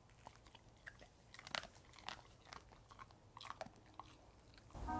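Siberian husky chewing a treat: faint, irregular crunching and clicking bites. Music comes in just at the end.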